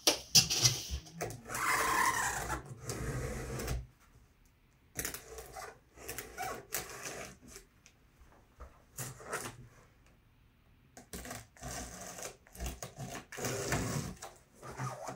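Handling noise from a large cardboard projector shipping box and its packing: a longer scraping rustle for the first few seconds, then scattered knocks, scuffs and rustles that pick up again near the end as the box is handled.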